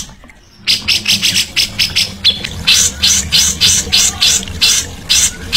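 Caged songbird calling in a fast run of harsh, high notes, about five a second, starting after a brief pause near the start.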